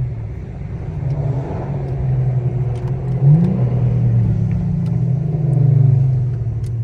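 Infiniti G35's 3.5-litre V6 exhaust with the resonator deleted, droning as the car pulls through the gears. The note climbs sharply about three seconds in, holds, and eases off near the end.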